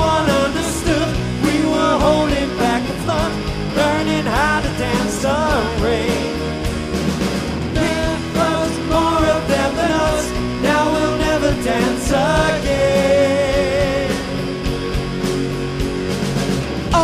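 Live rock band playing, with electric guitars, bass and drums under a male lead vocalist singing.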